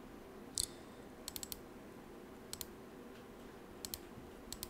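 Computer mouse clicking: a louder single click, then a quick run of about four and a few scattered pairs, over a faint steady hum.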